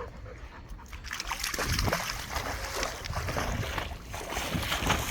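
Water splashing and running as a dog moves through it, with brief dog sounds in among the splashing; the splashing picks up about a second in.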